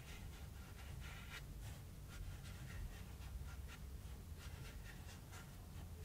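Paintbrush laying short strokes of gouache on cardboard: a run of brief brush scrapes, about three a second.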